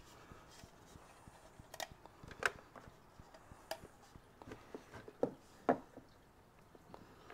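Small plastic clicks and knocks of a Wi-Fi router and its cable plugs being handled, unplugged and fitted. About half a dozen sharp clicks are scattered through the quiet, the sharpest about two and a half seconds and nearly six seconds in.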